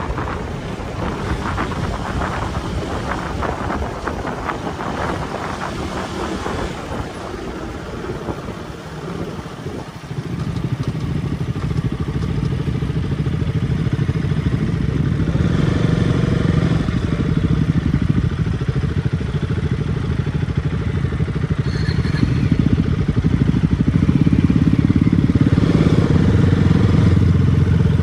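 Motorcycle engine running on the move, growing louder about ten seconds in and then holding steady, as when the throttle is opened.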